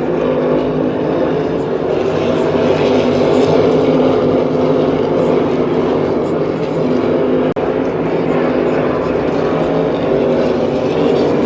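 NASCAR stock cars' V8 engines running loud and steady at racing speed, with a brief cut-out about seven and a half seconds in.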